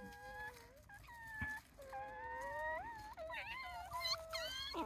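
Japanese raccoon dog (tanuki) pups whimpering. Their long whines waver up and down in pitch, and several pups cry at once, overlapping more thickly in the second half.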